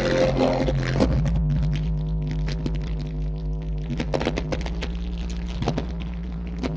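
Deep, sustained bass from a car audio system's Deaf Bonce subwoofer playing music, with many short clicks over the held low notes.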